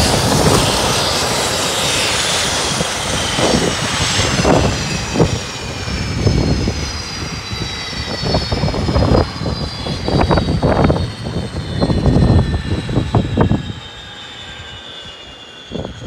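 Convair 580's Allison turboprop engines spooling down: a high turbine whine falls slowly in pitch and fades, over irregular low rumbling surges.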